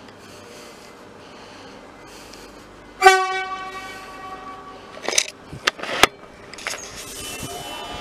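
A Metro electric suburban train's horn gives one short toot about three seconds in, sudden and loud, then fades. A few sharp knocks follow, then a hiss that slowly grows louder.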